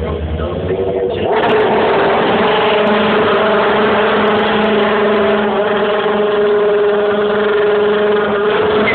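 A V8 DTM touring car's engine rises sharply about a second in, then holds steady at high revs while it spins its rear tyres in a burnout.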